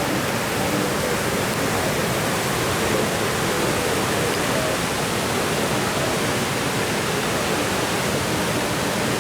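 Waterfall on the Genesee River: a steady, even rush of falling water.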